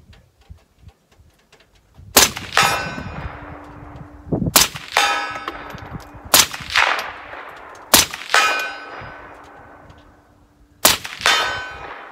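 Five rifle shots from a 7.62x39 AR-15, one to three seconds apart, each followed about half a second later by a metallic clang and ringing from a steel target; one round misses. Every round fires, the enhanced firing pin setting off the hard primers of cheap steel-cased ammo.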